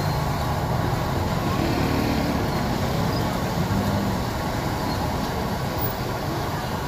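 Squid and shrimp deep-frying in a large wok of hot oil over a gas burner: a steady sizzle over the burner's low rush.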